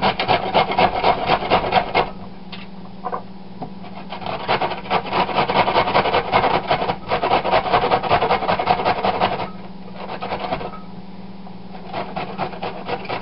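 Fennel bulb scraped up and down a stainless steel box grater in quick, even strokes. There are two long runs with a pause of about two seconds between them, then a few scattered strokes near the end.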